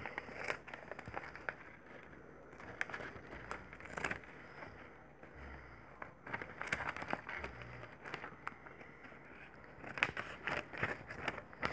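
Scissors cutting paper, with the paper rustling: a run of soft, uneven snips and crinkles, busier about six seconds in and again near the end.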